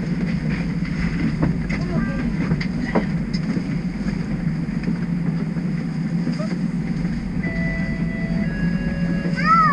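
TTC streetcar standing at a stop, its onboard equipment giving a steady low hum, with scattered light clicks. A few brief steady tones sound near the end, followed by a short squeak.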